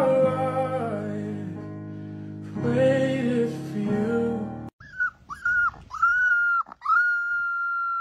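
Background music for the first half, then a young puppy howling: a few short howls followed by one long, steady howl.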